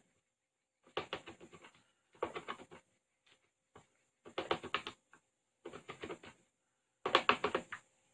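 Hand-held can opener cranked around a tin can in five short bursts of rapid clicking, with pauses between as the grip is shifted.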